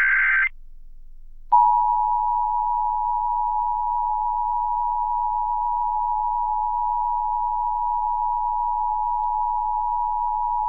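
The end of an Emergency Alert System SAME header data burst, then, after about a second of quiet, the EAS two-tone attention signal: a steady two-note tone (853 and 960 Hz sounded together) that begins about a second and a half in and holds unchanged.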